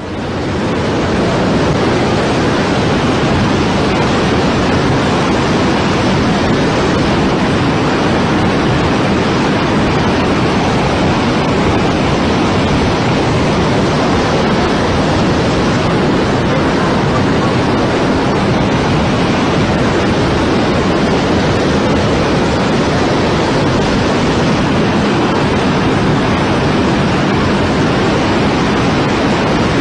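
Floodwater rushing, a loud steady roar without a break.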